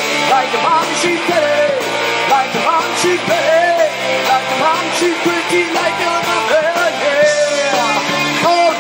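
Live band playing funk-tinged indie rock: drum kit, two electric guitars and electric bass, with a male singer's voice over them.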